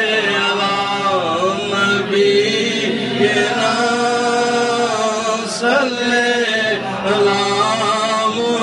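Male voices chanting a devotional naat refrain of salawat, blessings on the Prophet, in long drawn-out sung notes with slow pitch bends.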